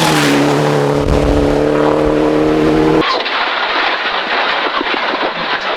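Rally car engine held at high revs under load, its note rising slowly for about three seconds. Then an abrupt change to a rapid, irregular run of sharp cracks and pops over the car's running noise.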